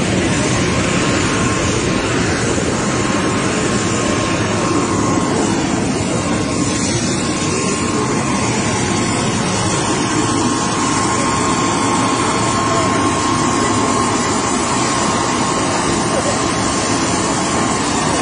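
Jet aircraft engines running steadily: a constant rushing noise with a steady whine through it.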